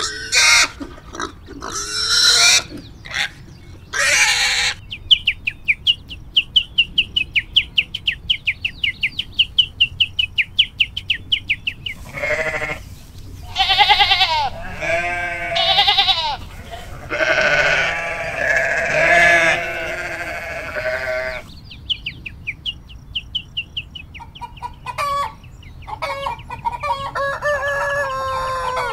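A run of farm animal calls: several seconds of fast, high repeated chirping, then a series of wavering bleats typical of a goat, then more chirping and further calls near the end.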